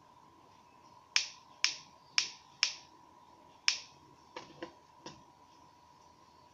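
Five sharp clicks, each with a short ringing tail, come about half a second apart from the opened Nikon SB-600 speedlight, followed by three softer knocks as the unit is handled.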